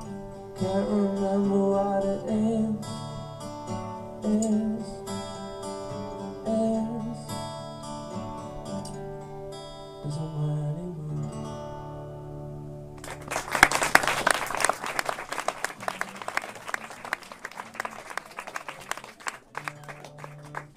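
Live concert recording: a man sings over guitar as the song winds down to its last held notes. Audience applause breaks out about 13 seconds in and thins out near the end.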